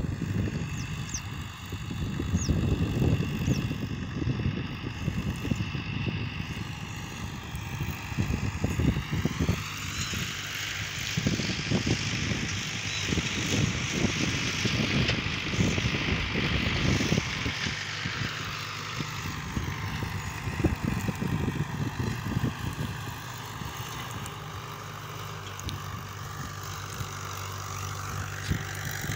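Wind buffeting the microphone outdoors, over a running vehicle engine. A rushing noise swells from about a third of the way in and fades again just past the middle, and a steady low engine hum is left toward the end.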